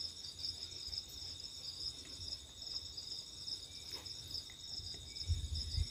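Faint, steady pulsing insect chirping, with a low rumble underneath and a few soft low thumps near the end.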